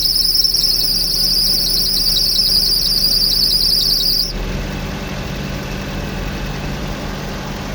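Mitsubishi's alternator belt giving a steady high-pitched squeal as the air conditioning comes on, cutting off suddenly about four seconds in while the engine keeps idling. The belt is too slack and slips on the alternator pulley under the extra load.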